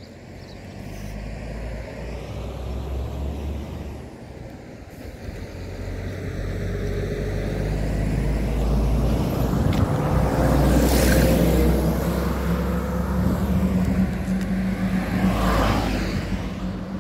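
Motor traffic on the road: a low engine hum builds up over the first several seconds, and vehicles rush past close by, loudest about eleven seconds in and again about fifteen seconds in.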